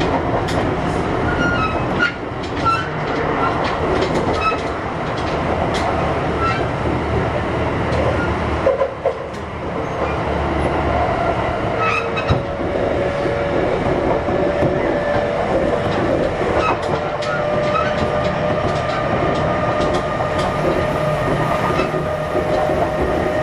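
Kintetsu 1021 series electric train running, heard from inside the car: steady running noise with wheels clicking over rail joints. In the second half, steady whining tones come in from the traction motors and their Hitachi GTO inverter.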